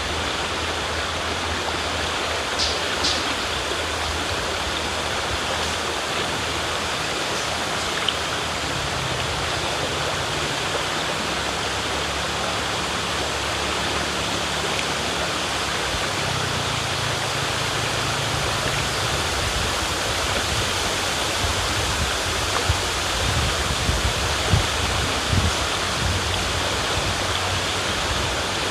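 River water flowing steadily over rocks, with a few brief splashes and drips about three seconds in and again around the middle of the last third.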